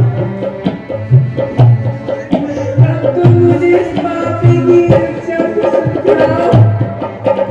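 Instrumental folk-style music: a hand drum keeps a steady beat of low strokes, about two a second, under a held melodic line.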